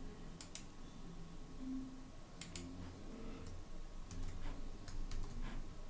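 Computer mouse clicking, faint and sparse, several clicks coming in quick pairs, over a faint low hum.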